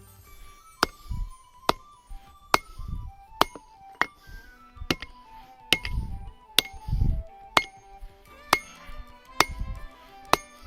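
Hand hammer striking steel on an anvil in a steady forging rhythm, a sharp ringing blow a little under once a second, about a dozen in all. Background music with a melody plays under the blows.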